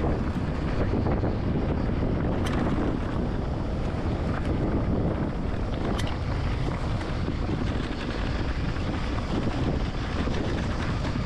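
Wind buffeting the microphone and tyre rumble as an electric mountain bike rides down a dirt trail, with a couple of sharp clicks.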